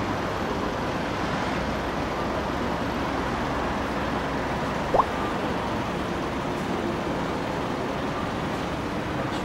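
Steady city street traffic noise, the even hum of passing road vehicles. About five seconds in comes one short chirp that rises in pitch.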